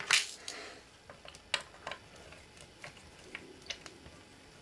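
Light clicks and taps of hands handling the metal cover of an avionics signal processor box as it is opened, with a short scrape just after the start and scattered sharp ticks after it.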